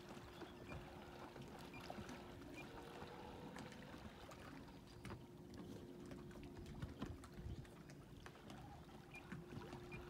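Small waves lapping faintly, over a steady low hum from an electric trolling motor pushing a dugout canoe.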